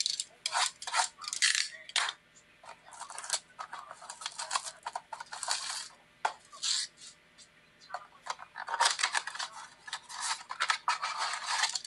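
Crackling and tearing of a trading-card blaster box's plastic wrap and cardboard as it is opened by hand, in irregular bursts with the busiest stretch near the end.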